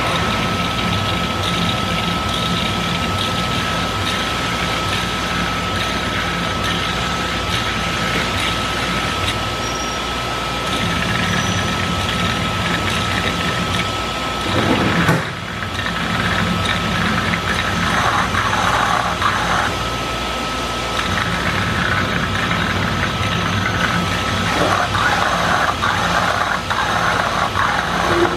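Mitsubishi EA12E die-sink EDM machine running while it burns under its dielectric fluid: a steady machine hum and hiss with a thin, steady high whine. There is a brief louder rush about halfway through.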